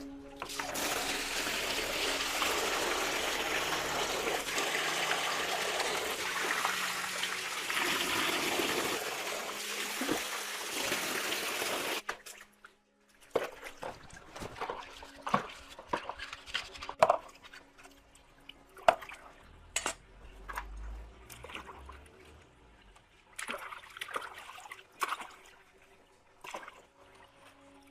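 Water running or spraying steadily, then cut off suddenly partway through, followed by dripping and small knocks and clatters of parts being handled.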